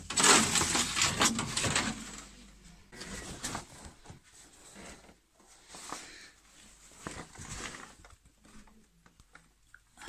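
Foil wrapping crinkling and rustling as it is handled with a gloved hand, loudest in the first two seconds, then scattered softer rustles and light knocks.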